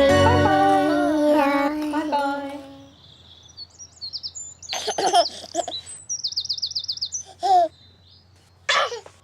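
A music passage with held notes fades out about two and a half seconds in. It gives way to bird chirps, including one rapid trill, and a few short high voice sounds like a baby's giggles.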